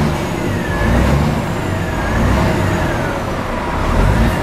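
Scania G500's straight-six diesel engine running at standstill, heard from inside the cab, its sound swelling and easing about four times as the revs rise and fall.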